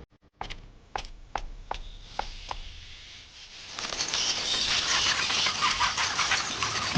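About seven short, sharp clicks in the first couple of seconds, then from about four seconds in a dense, steady chorus of birds chirping.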